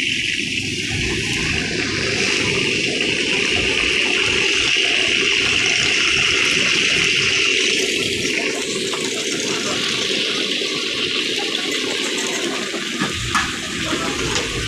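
Chicken deep-frying in a karahi of hot oil: a loud, steady sizzle, with a few sharp clicks about 13 seconds in.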